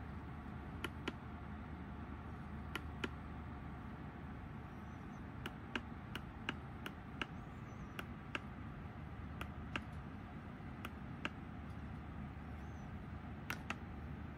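Plastic push buttons on a handheld dual-lens endoscope camera being pressed, a short sharp click at each press, many of them in quick pairs, about eighteen in all, over a steady low hum.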